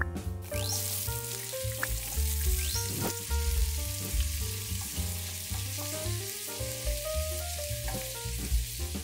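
Chopped onion sizzling in hot sunflower oil in a stainless steel pot, starting about half a second in, stirred with a wooden spatula. Background music plays along with it.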